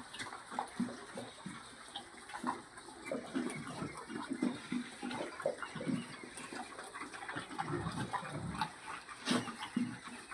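Pigs grunting irregularly in short, low calls, with wet, water-like noise mixed in.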